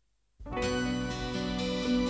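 Instrumental background music starts suddenly about half a second in, with held notes that change pitch as it goes.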